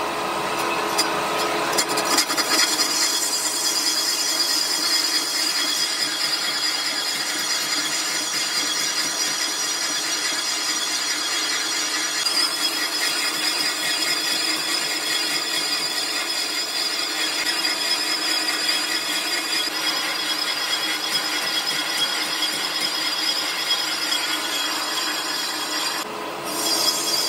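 A power tool working on a metal rim, running steadily with a dense grinding noise and a few steady tones through it, dipping briefly in level near the end.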